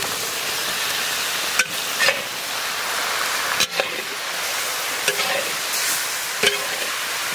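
Steamed shredded cabbage and diced potato sizzling with a steady hiss in hot oil and spices in a large metal kadai. A long metal spatula stirs them, scraping and knocking against the pan a few times.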